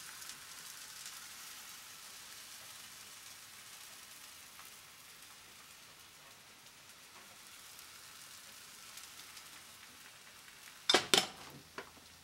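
Buckwheat galette batter sizzling in a frying pan over a gas flame, a steady soft hiss. Near the end come two sharp knocks close together, then a lighter one.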